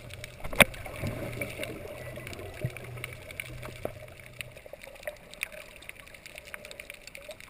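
Water noise picked up by a snorkeler's camera, with scattered small clicks. A sharp click comes about half a second in, and a low hum stops a little past halfway.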